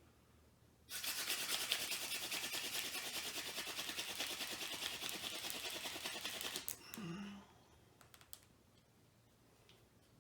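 Hand-drill fire by friction: a tall ironweed spindle spun fast back and forth between the palms into a white pine fireboard, grinding hard in a rapid rhythm for about six seconds and then stopping abruptly. A short low sound follows.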